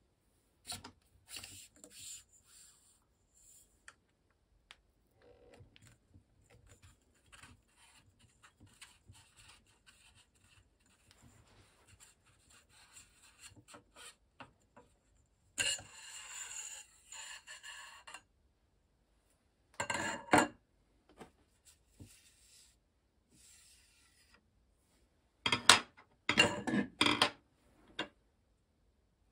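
Metal parts of an FX Dreamline air rifle's barrel system being handled and taken apart. Scattered light clicks and rubbing give way to a longer scrape about halfway through, and a few louder rattles and knocks come near the end.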